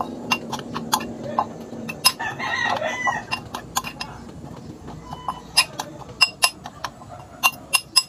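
A metal spoon clinking repeatedly against a glass mixing bowl while stirring a thick cocoa-and-oatmeal mixture, the sharp clinks coming irregularly two or three times a second. About two seconds in, a rooster crows once for about a second.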